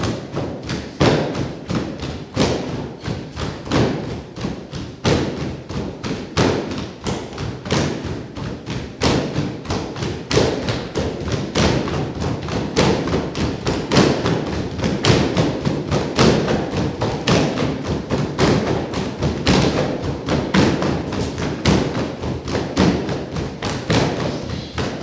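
Continuous run of thuds and taps, several a second, from performers moving and striking on a hollow wooden stage floor.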